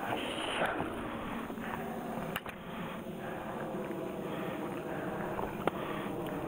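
Steady wind noise on the microphone, with rustling of bankside plants in the first second and three sharp clicks of gear being handled while a landing net is readied.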